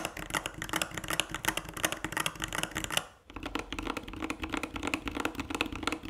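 Typing on a Varmilo Minilo 65% mechanical keyboard with double-shot ABS keycaps: a fast, dense run of keystrokes that breaks off briefly about three seconds in, then carries on.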